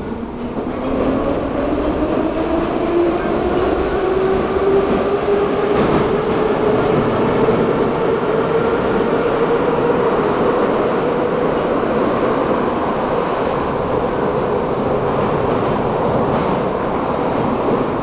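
81-717/714 metro train heard from inside the car while accelerating away from a station: its motor whine rises in pitch for about the first six seconds, then holds steady as the train runs on through the tunnel, over a constant rumble of wheels on rail.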